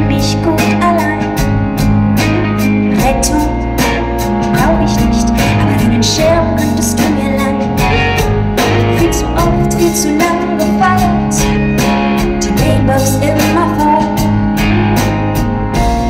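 Live band playing a pop song: a steady drum-kit beat, keyboards and bass, with a woman's singing voice over them.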